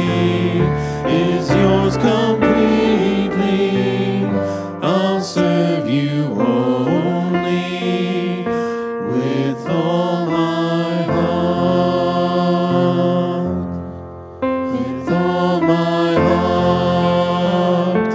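Worship song with singing and instrumental accompaniment, dipping briefly in loudness about fourteen seconds in.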